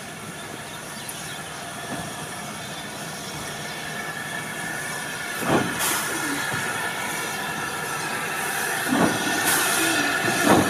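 Steam tank locomotive No 3 Twizell running slowly towards the listener, its steady steam hiss growing louder as it nears. Three sharp metallic clanks come in the second half.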